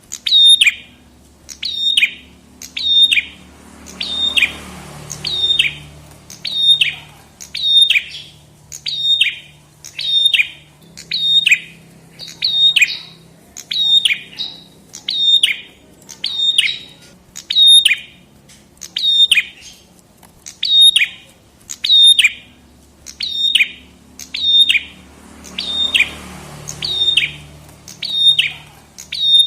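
Prenjak kepala merah (a small Indonesian songbird) calling: a sharp, high note that drops quickly in pitch, repeated at an even pace of about one a second.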